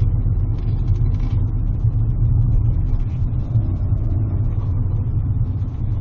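Steady low rumble of a car's engine and tyres, heard from inside the cabin while driving.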